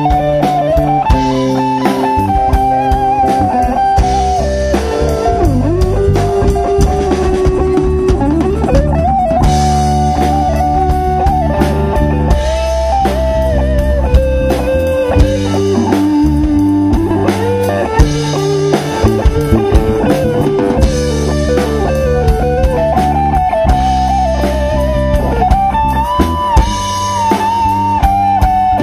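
Live band playing an instrumental passage: an electric lead guitar line with bent notes over bass guitar and drum kit.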